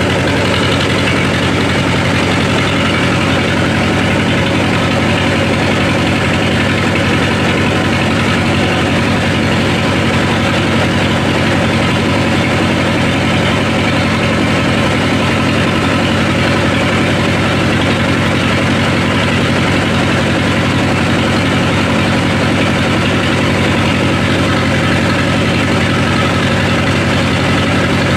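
Chinese-made 2105A two-cylinder diesel engine (the "Dong-Dong", rated 28 HP at 1500 rpm) running steadily under load as it drives a rice huller being fed with paddy, the engine and milling machinery making one loud, unchanging drone.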